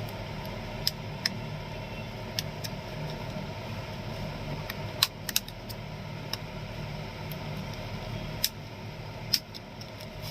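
Small sharp plastic clicks and snaps, scattered irregularly, as a thin blade pries the back cover off a keypad mobile phone. A steady low hum lies underneath.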